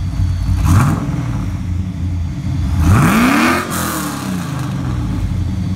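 An engine running and revving, rising sharply in pitch about three seconds in, with a shorter rise near the first second.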